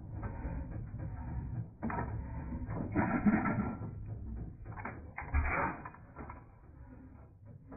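Antique single-cylinder stationary gas engine running, its external valve gear and linkage clattering with many small clicks. There are two louder bursts, about three seconds in and again about five and a half seconds in.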